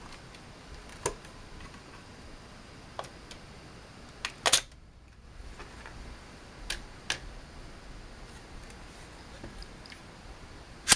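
Sharp metallic clicks and clacks from handling the freshly reassembled Norinco JW-14 .22 rifle, a few scattered over several seconds, with the loudest double click about four and a half seconds in and another sharp click at the very end.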